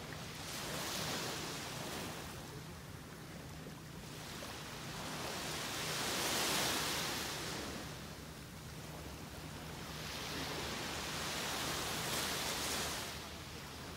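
Small waves breaking and washing up a sandy beach, the surf swelling and easing three times, about five to six seconds apart.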